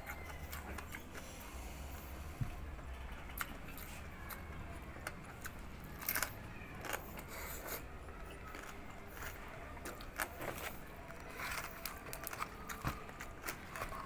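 A person chewing crispy deep-fried pig's face close to the microphone: irregular sharp crunches and crackles of the crisp skin, with small scrapes and clicks.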